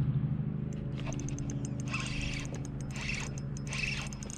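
Spinning fishing reel being handled and turned, with short spells of ticking and whirring about two seconds in and twice more near the end, over a steady low hum.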